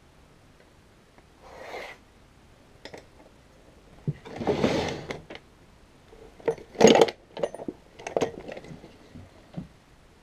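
Rummaging in a wooden drawer of tools: a longer sliding, scraping sound, then a run of sharp clatters and knocks as tools and small metal objects are moved about, the loudest about seven seconds in.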